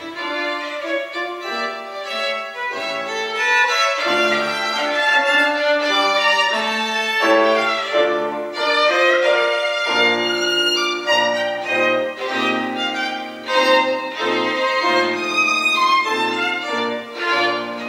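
Violin and piano duo playing a lively classical piece: a fast violin melody of quick, many short notes over piano accompaniment with low bass notes.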